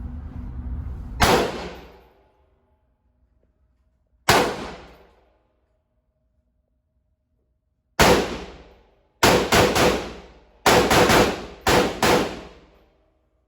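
A gun firing: two single shots a few seconds apart, then about nine more in quick strings near the end, each with a short ringing decay.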